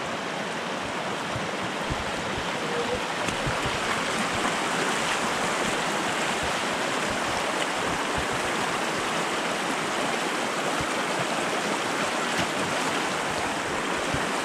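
Shallow rocky river rushing over stones in a steady, even wash of water, growing a little louder after the first few seconds.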